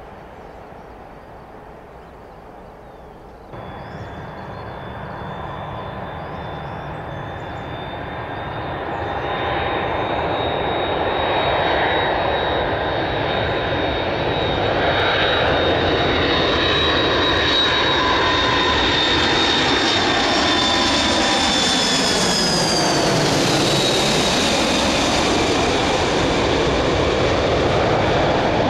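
McDonnell Douglas KC-10 Extender's three General Electric CF6 turbofans on landing approach, growing louder as the tanker closes in. A high whine rides over the engine noise and drops in pitch as the aircraft passes overhead. Before that, the first few seconds hold fainter jet noise from a distant aircraft on the runway.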